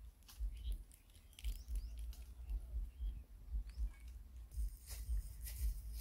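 Footsteps with twigs and dry leaves crackling underfoot while walking through scrub, with low buffeting on the microphone and a few faint bird chirps.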